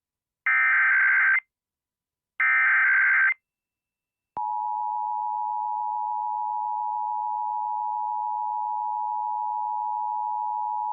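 Emergency Alert System header: the second and third of three short, harsh bursts of digital data tones, each about a second long and about a second apart. About four seconds in, the steady two-tone EAS attention signal starts and holds; it marks the start of an alert, here a required monthly test.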